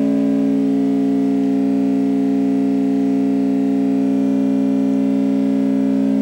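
A steady electronic drone: a synthesizer-like chord of several low tones held without a break.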